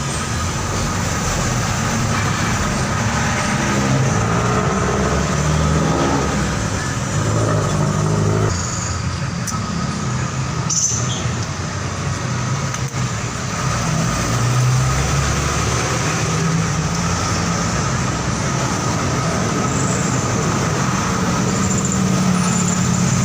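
A motor vehicle engine running steadily, its low pitch drifting up and down.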